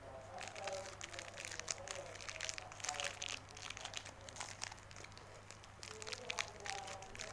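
Beng-Beng chocolate bar's metallised wrapper crinkling as it is handled and peeled back, a rapid run of small crackles that lets up about five seconds in and picks up again near the end.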